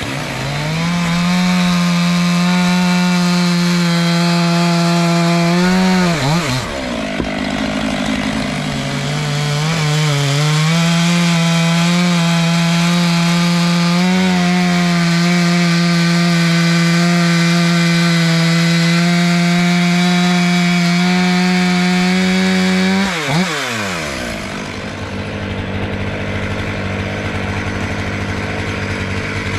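Stihl two-stroke chainsaw with a freshly sharpened chain cutting oak at full throttle. The revs dip and recover a couple of times in the first ten seconds, then drop to a steady idle about 23 seconds in.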